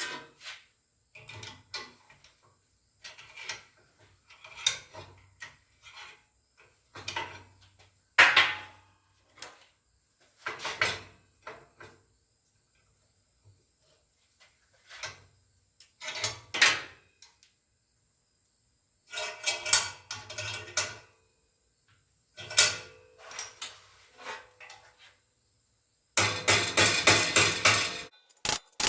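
Hammer driving a chisel against the metal brake slave cylinder: irregular metallic strikes, a few seconds apart and sometimes in short clusters, then a quick run of rapid blows near the end.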